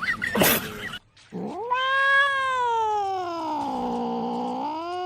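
Cat yowling: one long, wavering caterwaul that starts about a second in, sinks slowly in pitch and rises again near the end.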